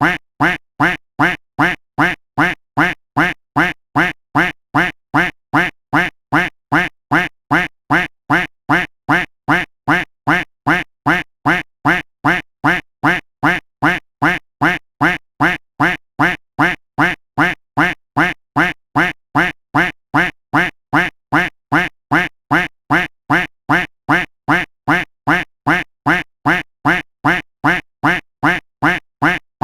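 A duck quack sound effect looped: the same single quack repeated at an even pace, about three quacks every two seconds.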